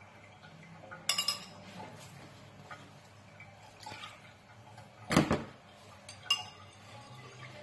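Metal spoon clinking and scraping against a ceramic bowl: a quick cluster of clatters about a second in, a louder knock of crockery with a dull thud about five seconds in, and one more sharp clink soon after.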